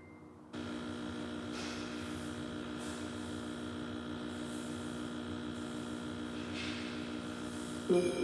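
Steady electrical hum and buzz through an old television's speaker, coming in about half a second in. Louder music starts just at the end.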